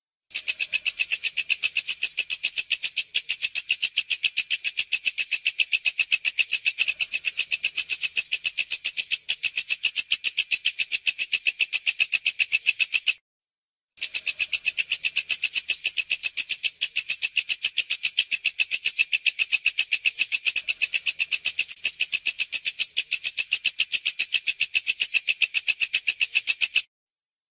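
Walang kecek bush cricket (katydid) chirping: a fast, even train of high-pitched pulses. It stops for about a second midway and again just before the end.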